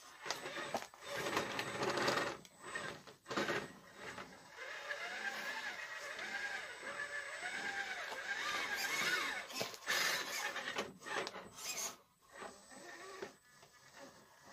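Element RC Trailrunner 1/10 crawler driving: its electric motor and geared drivetrain whine in short bursts, the pitch rising and falling with the throttle, while the tyres scrape and knock over rock and wooden boards.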